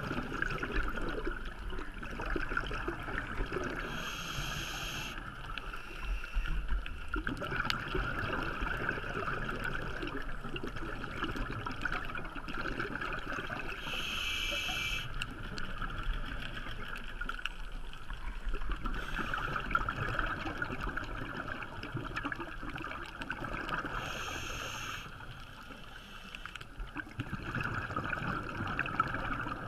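A scuba diver breathing underwater through a regulator, with bubbling and gurgling water throughout. Three short hisses come about ten seconds apart.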